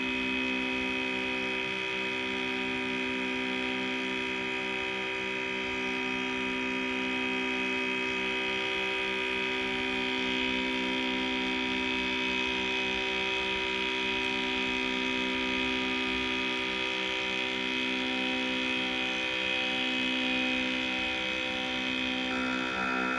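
5U modular synthesizer playing a steady drone of many held tones, the low tones wobbling slowly every few seconds. Near the end a new higher tone comes in.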